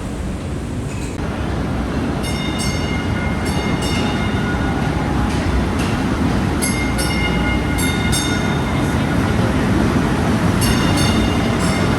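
Boston subway train running with a steady low rumble that grows slowly louder. From about two seconds in, high-pitched squeals from the wheels on the rails come and go.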